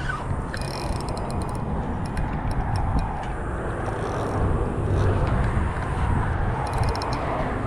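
Wind buffeting the microphone, a steady low rumble, with short runs of light ticking about a second in and again near the end.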